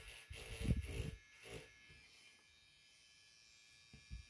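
Small battery-powered grinding pen (NorthridgeFix NF.V2) buzzing as its fine tip grinds solder mask off a circuit board pad, with a few dull knocks in the first second and a half. The buzzing drops away after about a second and a half, leaving a faint steady hum.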